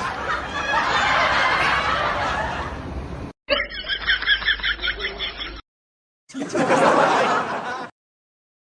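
People laughing, in several short clips that cut off abruptly with brief silences between; the middle stretch is a rhythmic ha-ha laugh of about five pulses a second.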